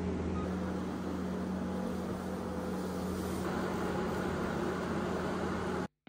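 Case SV340 skid steer's diesel engine running at a steady drone, cutting off suddenly near the end.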